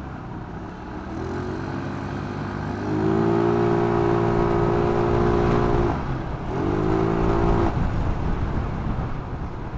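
Yamaha Mio Sporty scooter's single-cylinder four-stroke engine, bored out to 59 mm, accelerating under throttle: it climbs in pitch and holds high revs, eases off about six seconds in, revs up again and then backs off near the end. Steady road and wind noise runs beneath it.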